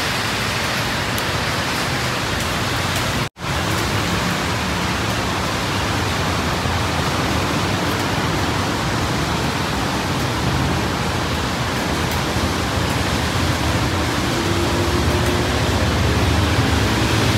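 Heavy rain pouring down, a loud, steady, even hiss. It breaks for a split second about three seconds in, and a low rumble builds up near the end.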